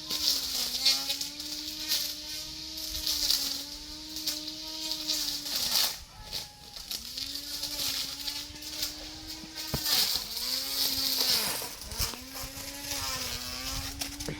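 Brush cutter running at high speed, its pitch dipping sharply and recovering several times as the blade bogs down under load while cutting, with a steady hiss of cutting over it.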